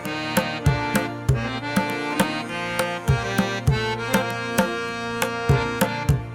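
Instrumental background music: a steady hand-drum beat of about three strokes a second over sustained, held tones.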